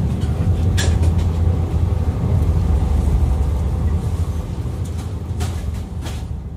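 Inside a JR 485-series limited express carriage at speed: the steady low rumble of the train running on the rails, with a few sharp clicks, fading out near the end.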